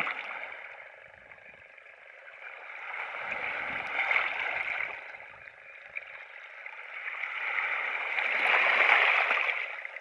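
Low ripples of the calm Black Sea washing over shoreline stones, swelling twice: about three seconds in and again near the end.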